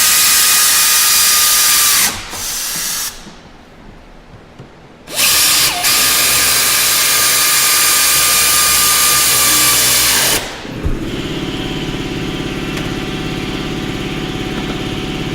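Power tool running in the alternator's mounting bolts. There are two long runs of a loud, high whine with a pause between them, then a lower, steadier buzz for the last few seconds.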